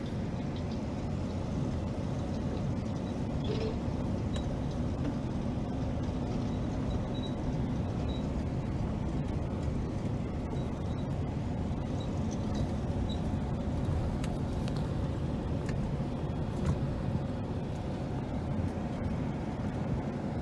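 Steady low rumble of farm machinery at work: a tractor pulling a strip-till toolbar and air cart through the field, its row units cutting strips in the soil.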